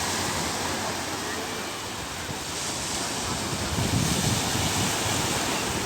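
Sea waves washing up on a beach, the hiss of the surf swelling twice, with wind buffeting the microphone.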